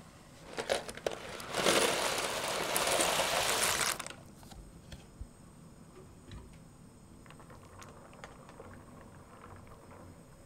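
Kitchen food-preparation sounds: a few sharp clicks, then a loud rushing noise lasting about two and a half seconds, then light scattered taps and clicks.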